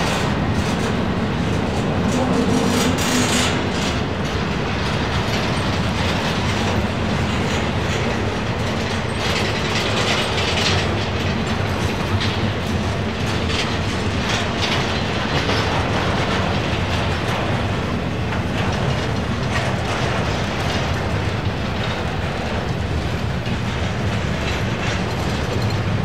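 Freight train rolling past, its steel wheels clicking steadily over the rail joints under a constant rumble of the cars.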